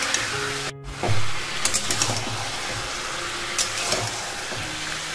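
Marinated chicken pieces sizzling in hot mustard oil in a metal kadai on a high flame. A metal spatula turns them, scraping against the pan a few times. The sound drops out briefly just under a second in.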